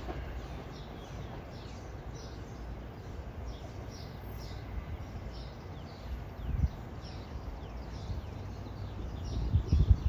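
Songbirds chirping over and over in the trees, some calls sliding down in pitch, over a steady low rumble. A few low thumps come about two-thirds through and again near the end.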